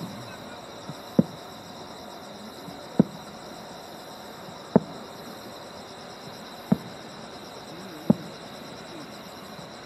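Insects chirping in a steady, high, pulsing trill, with five sharp, short thumps a second or two apart standing out above it.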